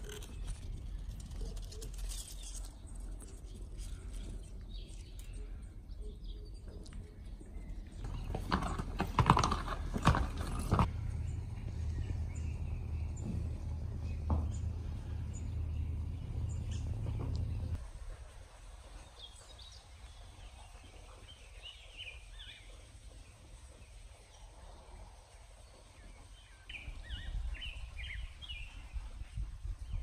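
Outdoor stable-yard sound with horses: a short run of hoof knocks and clatter about nine to eleven seconds in over a steady low rumble, then quieter, with small birds chirping.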